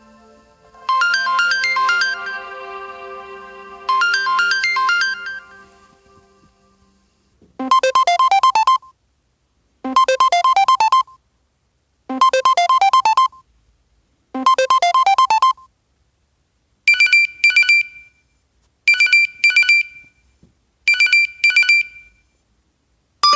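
LG V20 phone ringtones played one after another. First a chiming melody fades out. Then a quick rising run of notes repeats four times. Then a pair of short high beeps repeats three times.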